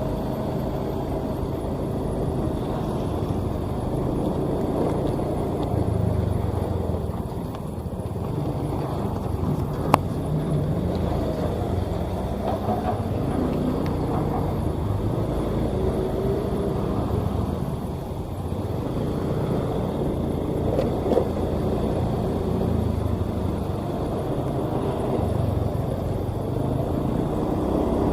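Sakai asphalt paver travelling under its own power, its diesel engine running steadily, with a sharp click about ten seconds in.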